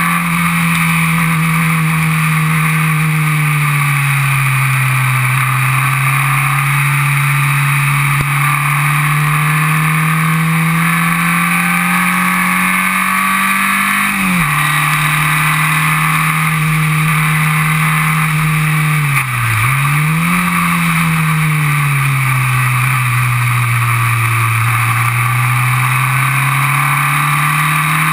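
Onboard sound of a Formula Vee race car's air-cooled Volkswagen flat-four engine running hard at racing speed. The engine note rises and falls slowly with the throttle, drops sharply about halfway through, and dips and recovers quickly about two-thirds of the way through.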